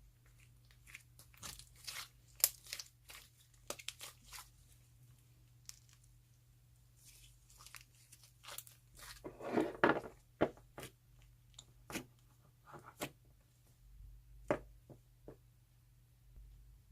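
Handmade slime mixed with crunchy snack pieces being squeezed and pulled by hand, giving irregular sharp crunches and crackles, with a denser run of crunching about nine to ten seconds in.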